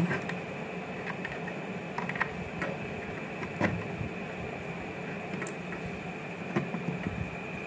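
Light clicks and scrapes of RCA plugs being pushed into a set-top box's audio-video sockets as the cables are handled, over a steady background hum with a faint high tone.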